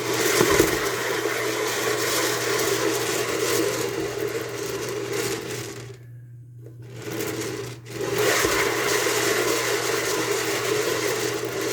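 Homemade 24-inch Lazy Susan turntable spinning fast, its bearing giving a steady mechanical whir. It stops about six seconds in and starts up again a second or so later.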